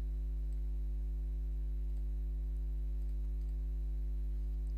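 Steady electrical mains hum with its evenly spaced overtones, with a few faint clicks from a computer mouse scattered through it.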